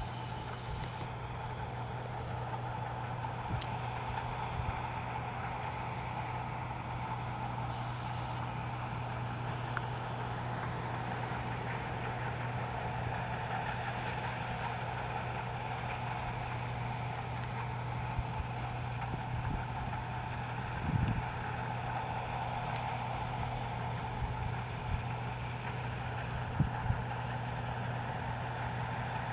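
Case IH 2388 combine harvester running steadily as it cuts oilseed rape: an even drone of its diesel engine and threshing machinery. A few brief thumps come in the last third.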